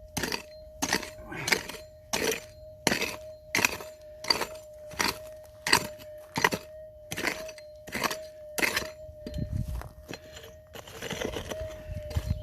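A digging tool striking hard, stony gold-field ground in steady chops about every 0.7 seconds, turning to rough scraping of soil and stones in the last couple of seconds: digging out a detector target in hard wash beside tree roots.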